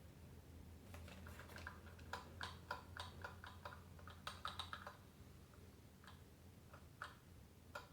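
Faint, quick plastic clicks and taps from handling the parts of a partly disassembled cordless Dyson stick vacuum: a dense run of them from about one to five seconds in, then a few scattered ones.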